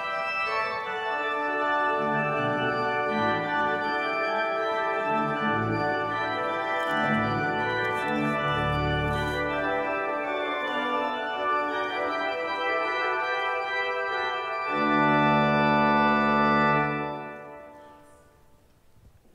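Church organ playing slow sustained chords, with bass notes coming in after about two seconds. It ends on a louder held final chord near the end that dies away over about two seconds.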